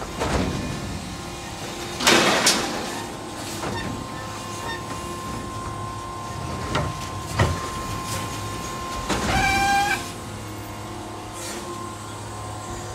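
Electric Mack LR New Way side-loader garbage truck working: a loud hiss about two seconds in, then a steady high whine for several seconds with a few sharp knocks, and a short beep-like tone near the end.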